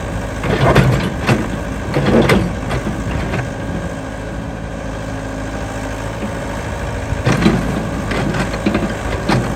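Yanmar ViO70 mini excavator's diesel engine running steadily under load while the bucket works the soaked brick and mud of an old canal bank, with several knocks and scrapes in the first couple of seconds and again near the end.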